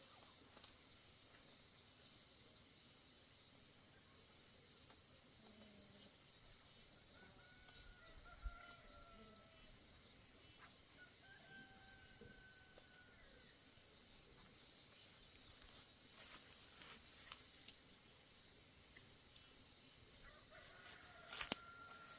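Faint rooster crowing, a few times, over a steady high pulsing chirr. A sharp click about a third of the way in, and another near the end.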